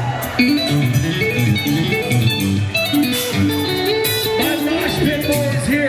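A rock band playing live: intricate, fast-moving electric guitar lines over bass guitar and drums, loud and steady throughout.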